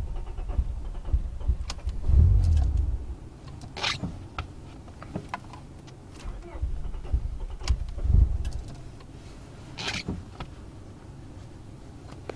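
Honda Prelude engine being cranked by the starter without catching, in two tries. Short clicks and hisses fall between the tries. The uploader traced the no-start to the distributor.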